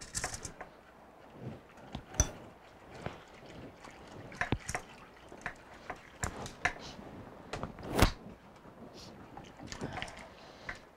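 Wire whisk clinking and scraping against a pot while stirring gravy mixture into hot chicken stew, with the liquid sloshing. The clinks come irregularly, the loudest about two seconds in and about eight seconds in.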